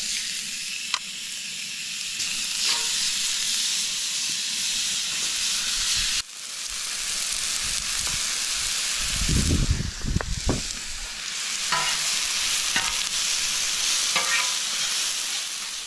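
Chicken, sliced onions and peppers sizzling steadily on a hot flattop griddle, with a few light clicks and a brief low rumble about ten seconds in.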